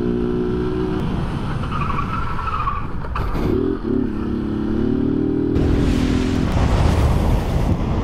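Motorcycle engine running as the bike rides along, its pitch breaking and climbing again around three seconds in, as at a gear change. From about five and a half seconds a loud, even rush of wind and road noise takes over.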